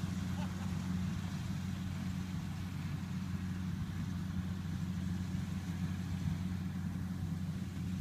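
Rice combine harvester's engine running steadily, a low even hum with no change in pitch.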